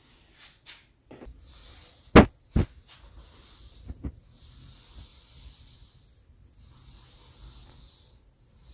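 Small foam paint roller rolled back and forth over a wet clear finish on a wooden table top, a soft hiss with each stroke. Two sharp clicks come about two seconds in and two more near four seconds.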